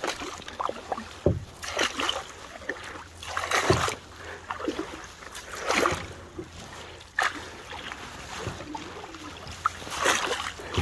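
Wooden canoe paddle stroking through calm water: a swish and splash about every two seconds, with a couple of short knocks between strokes.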